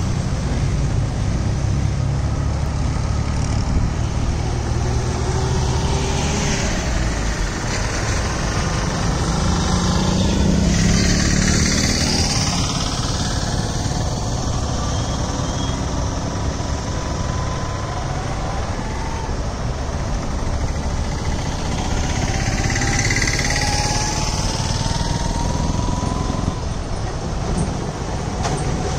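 Diesel tractors and trucks running along a rough dirt road, a continuous engine noise with heavy vehicles passing close about a third of the way in and again about three quarters of the way in.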